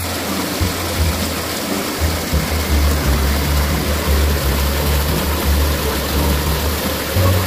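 Steady rush of water from a small stream spilling into a fish pond, under background music with a low bass line.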